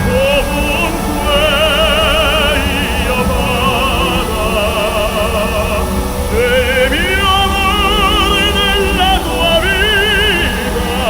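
Operatic singing with wide vibrato, long held notes that change every second or two, over music with a steady low rumble underneath.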